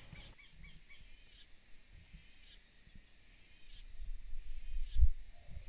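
Quiet rural outdoor ambience with faint bird chirps at first and a soft high tick about once a second. A low rumble builds in the last second or two, with one thump near the end.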